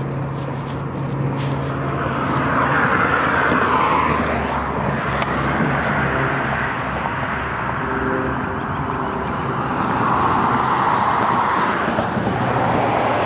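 Road traffic: cars passing, one swelling past a few seconds in and another near the end, over a steady traffic hum.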